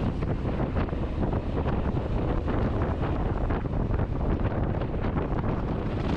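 Wind buffeting the camera microphone on a moving Honda ADV 350 scooter, a steady, dense rush with a low rumble of road and engine underneath.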